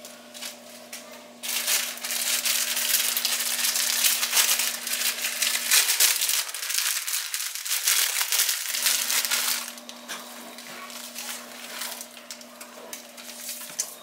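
Crinkling plastic ramen noodle packets being handled and torn open, a dense crackle that runs for about eight seconds and dies down about ten seconds in.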